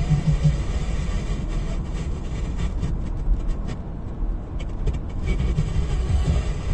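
Steady low rumble of tyres and road inside the cabin of an electric car on the move.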